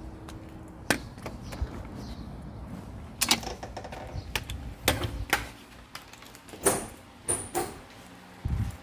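Door and handling noise: a string of sharp clicks and clacks at uneven spacing, the loudest about three, five and nearly seven seconds in.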